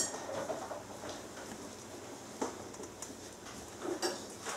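Small clicks and knocks of bowls and painting tools being handled on a worktable: a sharp click at the start, a knock about two and a half seconds in, and a couple of small knocks near the end, over faint room noise.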